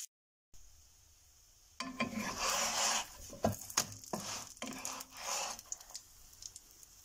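Wooden spatula scraping and knocking against a nonstick frying pan as a gözleme is pushed and lifted, with several sharp clicks over a faint sizzle of hot oil.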